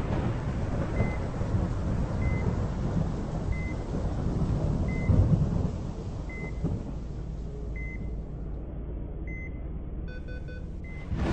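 Heart-monitor beeps, one short high beep a little over once a second, slowly spacing out, over a steady low rumble like thunder. Near the end a few brief higher beeps of several pitches sound together.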